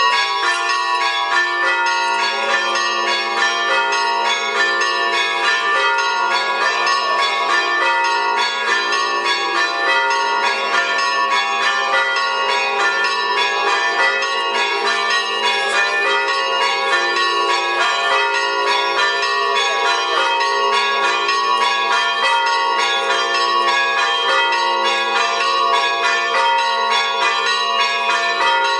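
Several church bells rung rapidly and without pause in a festive peal, the bells' tones overlapping. This is the peal that accompanies the procession of the Virgin Mary's icon.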